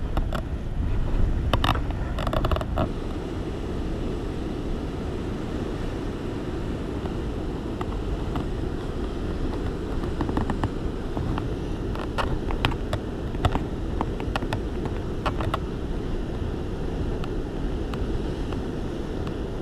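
Wind buffeting the microphone over the steady rush of sea surf, with a few light clicks scattered through it.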